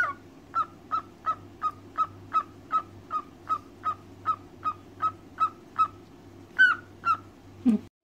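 Cockatiel repeating one short chirp about three times a second, some fifteen times in a row, then two louder, higher chirps and a falling call near the end.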